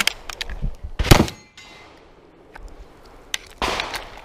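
Pump-action shotgun being worked and fired: sharp bangs and metallic clacks, the loudest about a second in and another pair near the end.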